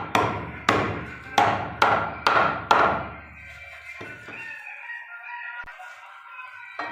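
A butcher's blade chopping beef: six quick, heavy chops in the first three seconds, then a pause and one more chop at the very end.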